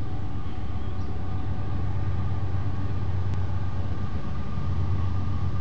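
A steady low rumble with a faint hum above it, holding an even level throughout.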